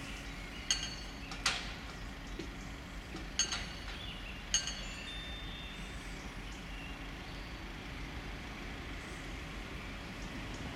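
Four short metallic strikes that ring briefly, irregularly spaced over the first five seconds, followed by a faint steady low rumble.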